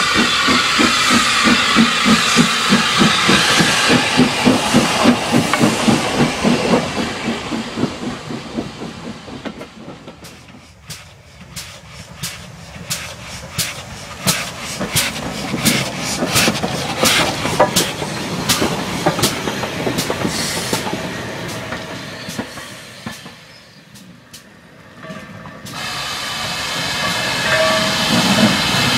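Austerity 0-6-0ST saddle tank steam locomotive pulling away, its exhaust chuffing a few beats a second over a steam hiss, fading over the first several seconds. A run of sharp clicks of wheels over rail joints follows, then the hiss and rumble of the GWR Manor class 4-6-0 steam locomotive build as it passes close near the end.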